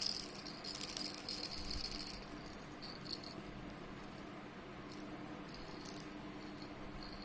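A baby's toy rattle shaken, jingling in quick shakes for about two seconds, then a few brief single shakes.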